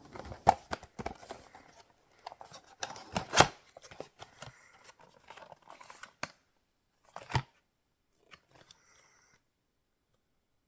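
Packaging of a hard-wax kit being handled and torn open: cardboard and plastic rustling and tearing with sharp clicks, loudest about three and a half seconds in. The handling stops about seven and a half seconds in.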